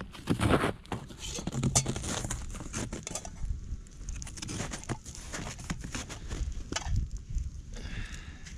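Small stick campfire crackling, with the crunch of snowshoe footsteps in snow as someone walks up and crouches beside it.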